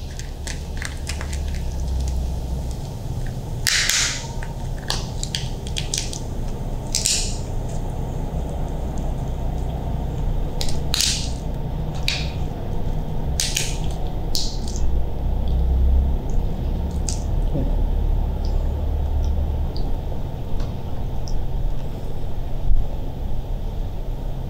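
The shell of a boiled giant mantis shrimp cracking and crunching as it is broken apart by hand. Sharp cracks are scattered through, most of them in the first half, over a steady low rumble.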